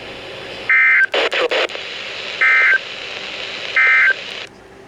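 Three short bursts of Emergency Alert System digital data tones, each a fraction of a second and about 1.5 s apart, over steady radio hiss. Coming right after the end of the spoken warning, they are the End of Message code that closes the alert. A brief snatch of voice falls between the first two bursts.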